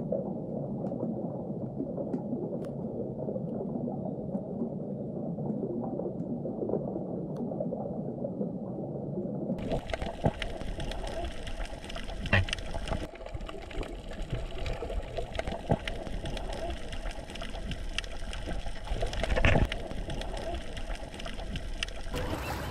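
Muffled underwater water noise, then an abrupt change to water sloshing and splashing at the surface, with two louder splashes.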